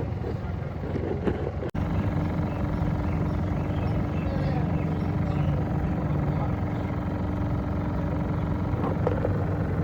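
Steady mechanical running hum with a constant low tone. It breaks off for an instant about two seconds in, then carries on steadily.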